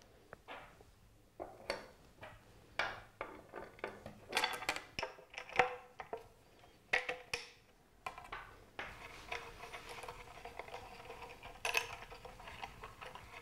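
Handling clicks and clinks of a carbon fibre turbine blade being fitted into its hub, with small stainless steel screws and washers, as a series of separate light knocks. About nine seconds in these give way to a faint steady background with a few held tones.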